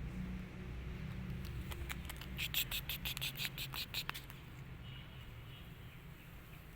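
Kittens suckling at their mother, a quick run of small wet clicks lasting about two seconds, over a steady low rumble.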